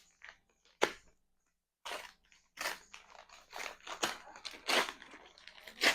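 A cardboard delivery package being opened by hand: a sharp click about a second in, then a run of short, irregular rustling and scraping noises as the packaging is handled.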